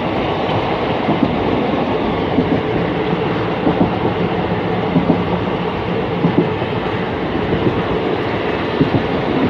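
Indian passenger train running at speed, heard from inside a coach: a steady rumble with irregular clacks from the wheels over the rail joints.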